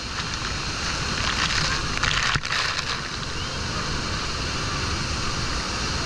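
Steady roar of Bridal Veil Falls at Niagara, its rushing water and blowing spray mixed with wind buffeting the microphone. The rush dips for a moment a little over two seconds in.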